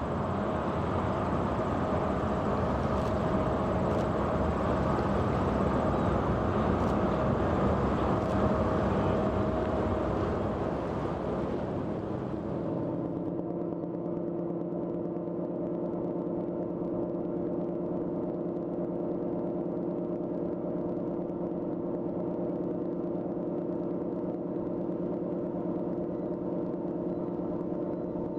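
Steady machinery drone of a Great Lakes ship. For the first half it is a rougher, noisier engine sound from a vessel passing close by; about 13 seconds in it changes abruptly to an even, constant-pitch hum of engines and machinery heard from aboard a freighter under way.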